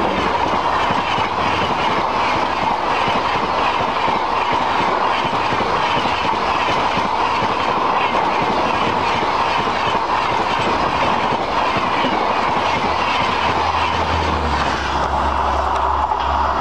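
Coaches of an Indian Railways express train passing close by at speed, the wheels rattling over the rail joints in a fast, even clickety-clack, with a steady high ringing tone over it. About fifteen seconds in, the last coach goes by and the rattle fades, leaving a low rumble.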